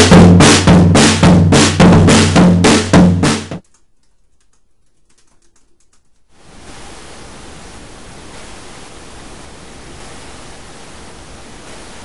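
Snare drum and tom struck hard with drumsticks in a run of evenly spaced hits, cutting off abruptly about three and a half seconds in. Then comes a near-quiet stretch with a few faint clicks, followed by a steady hiss from about six seconds in.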